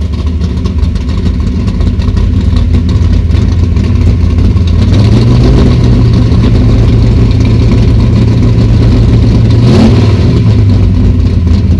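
A 1969 Camaro's World Products 427 small-block V8 runs with its electric exhaust cutouts open through a custom 3-inch exhaust, heard from inside the cabin. It grows louder over the first few seconds, the revs rise and hold higher from about five seconds in, then drop back near the ten-second mark.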